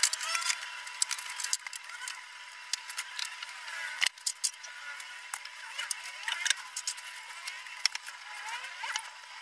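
A soft broom sweeping a tiled floor, pushing scattered plastic toy blocks that click and clatter irregularly across the tiles.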